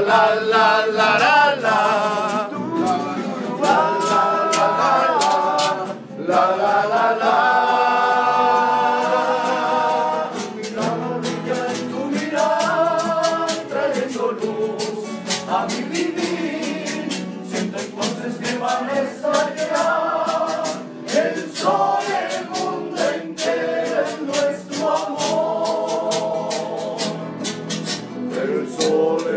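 Men singing a serenade together in harmony, with long held notes and vibrato, to strummed acoustic guitars.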